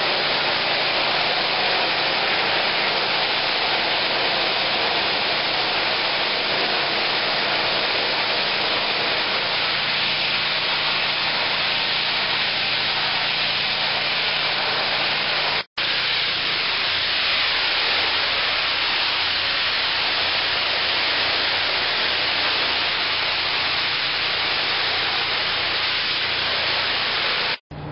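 Hot-water pressure washer spraying: a loud, steady hiss of the water jet against a door and concrete, with a low steady hum underneath. It cuts out for an instant about halfway through and again at the end.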